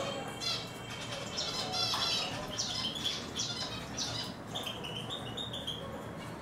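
Eurasian siskins twittering in a cage: a run of short, high chirps and quick trills, with a brief flutter of wings.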